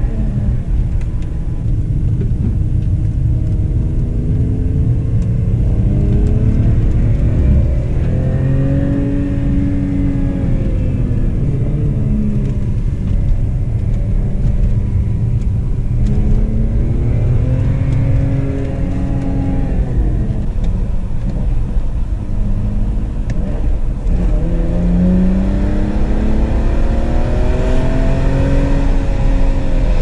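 BMW E46 320ci's M54B22 2.2-litre straight-six, fully decatted with an M52 exhaust system, pulling under acceleration, its revs rising and falling several times. Heard from inside the cabin.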